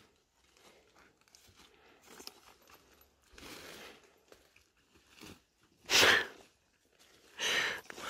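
Footsteps crunching and rustling through dry fallen branches and forest undergrowth, in separate irregular bursts; the loudest sharp crunch comes about six seconds in, with another just before the end.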